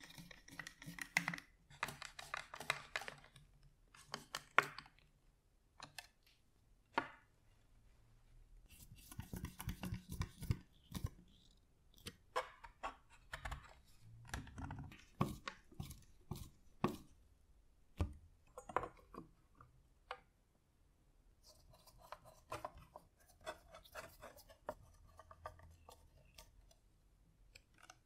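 Hand screwdriver driving screws into a wooden base, with wooden parts being handled and fitted together: scattered short scraping bursts, clicks and knocks.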